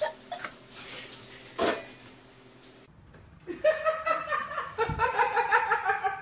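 A woman laughing in quick repeated bursts, starting about halfway through. Before it, a few soft clicks and knocks.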